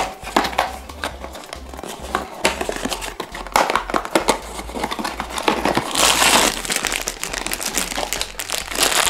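A small cardboard blind box being opened by hand, then the black plastic bag inside it crinkling and rustling as it is pulled out; irregular small clicks throughout, loudest about six seconds in.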